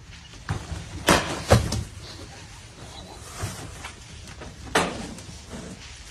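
Several sharp knocks and thuds, the loudest two close together about a second in and another near the end, from large plastic water tanks being bumped and shifted as a man climbs about in them.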